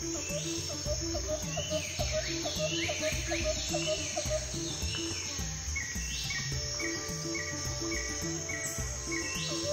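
Tropical forest night ambience of insects chirping in quick repeated pulses, with bird-like calls that slide down in pitch. It is laid over soft background music with an even low pulse.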